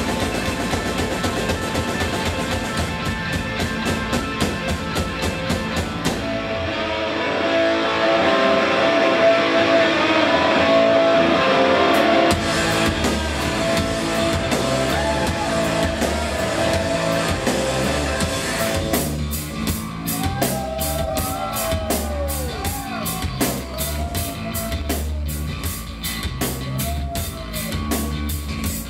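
A rock band playing live: electric guitars over a drum kit. The music swells louder for several seconds early in the stretch, and from about two-thirds of the way through the drums keep a steady cymbal beat under sliding guitar notes.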